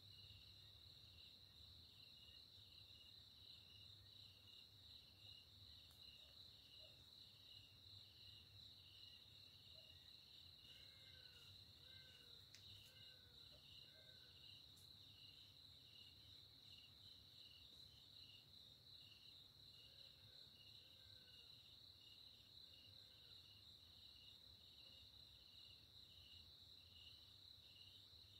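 Faint chorus of night insects such as crickets: a steady high trill over a pulsing lower trill. A few short chirping calls come in the middle and again later.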